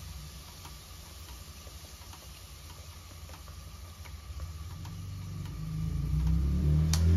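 Mussels cooking in a pot, with faint scattered ticks and crackles over a steady low rumble. The rumble swells much louder in the last second or two.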